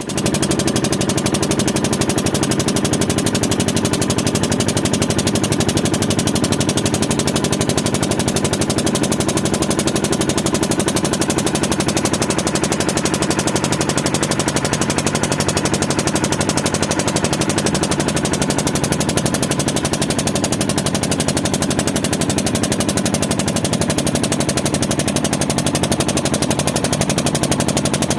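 Manas River rushing: a steady, loud rush of fast-flowing water with a dense, rapid crackle.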